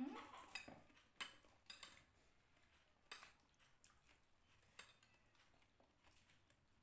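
Metal spoon and fork clinking faintly against a plate a few times during a meal, as short scattered taps.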